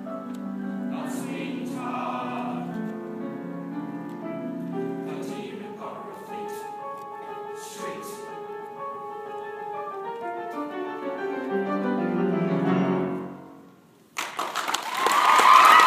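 Choral ensemble singing a musical-theatre number with instrumental accompaniment, closing on a chord that dies away; near the end, audience applause and cheering break out.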